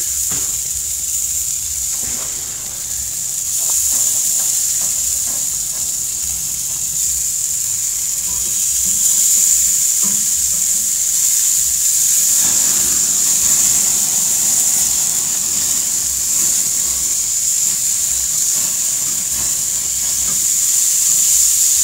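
Stuffed burger patties sizzling on a gas grill's grate: a steady, high-pitched hiss.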